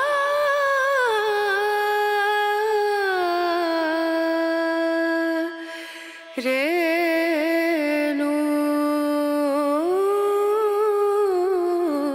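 Background music: a solo voice humming a slow melody in long held notes with wavering vibrato and gliding steps between them, breaking off about five and a half seconds in and resuming about a second later.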